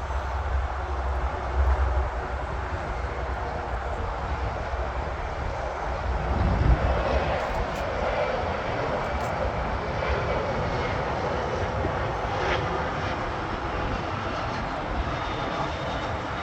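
Jet airliner's engines running during a landing, a steady noisy rush with a low rumble in the first half and a faint rising whine near the end.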